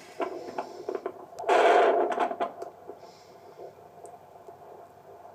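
Handheld fetal Doppler's speaker giving crackling static with scattered clicks, and a louder rushing burst about a second and a half in.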